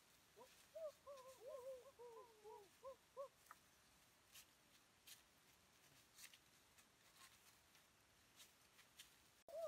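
A bird calling in a quick run of short, arched notes for about three seconds, then stopping. Faint scattered crackles of feet on dry leaf litter are heard throughout.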